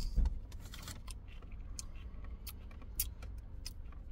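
A bite of potato salad being chewed, heard as scattered small irregular mouth clicks, after a brief thump at the start as the foam cup is handled.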